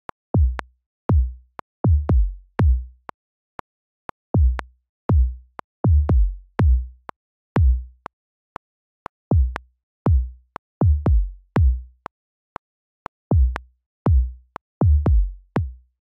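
An 808 bass pattern played from Logic Pro's Quick Sampler: a string of short sub-bass hits, each a sharp click followed by a low boom that a fade-out cuts off within about half a second, so the bass sounds choppy rather than held out. Faint ticks sound between the hits.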